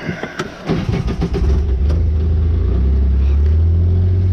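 Side-by-side UTV's engine, after a few clicks and knocks, starts up about a second in and settles into a steady low running drone.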